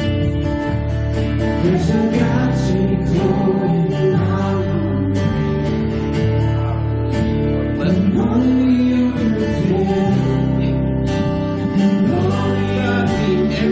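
Live church worship band playing a song, with guitar, keyboard and drums, and a voice singing.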